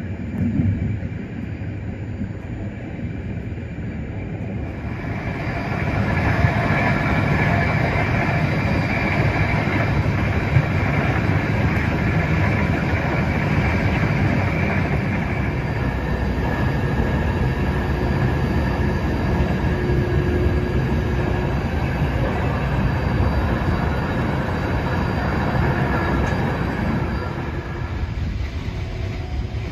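Passenger train running at speed: a steady rumble of wheels on the rails, growing clearly louder about five seconds in and easing off a little near the end.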